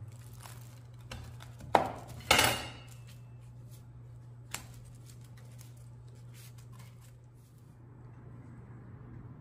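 A chef's knife cutting through crisp grilled mutabbaq onto a paper-lined wooden board: two loud crisp cuts close together about two seconds in, then a single light knock a couple of seconds later. A steady low hum sits underneath.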